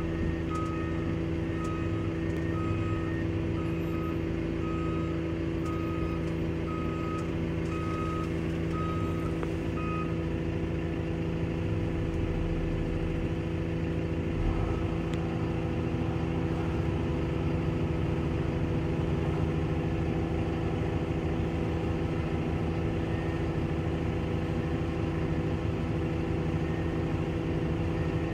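Steady diesel engine drone heard from inside a wheel loader's cab, with a John Deere articulated dump truck's reversing alarm beeping about once a second until about ten seconds in. From about halfway the sound thickens as the truck's engine works to tip its bed and dump the load of snow.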